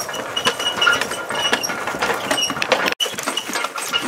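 Team of Percheron draft horses pulling a horse-drawn vehicle: a busy, irregular clatter of hooves, harness hardware and the vehicle rattling, with short high squeaks scattered through it. The sound drops out for an instant about three seconds in.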